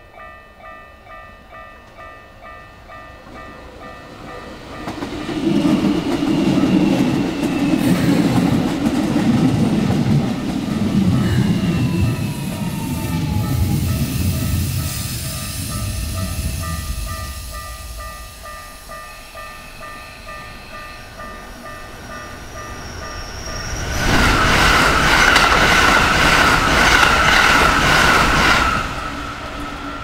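A Japanese level-crossing bell rings in a steady pulsing rhythm, and a Keikyu Line electric train passes close by from about five seconds in with a loud rumble of wheels on rail. Near the end a second loud passage comes, with a strong ringing tone over the rail noise.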